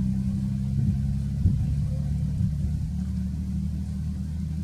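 A motor engine running at a steady idle, a low hum, with a light knock about a second and a half in.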